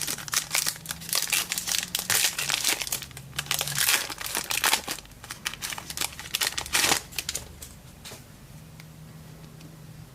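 Trading card pack wrapper crinkling and tearing as it is pulled open by hand. The crackling runs for about seven seconds and dies down near the end.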